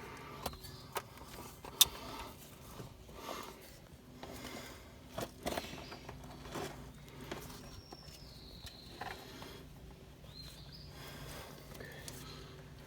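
Faint, scattered clicks and knocks of a shock absorber's lower mounting bolt being wiggled and worked into its bracket on a Ford F-250 Super Duty's front suspension, with one sharper knock about two seconds in. A faint steady low hum runs underneath.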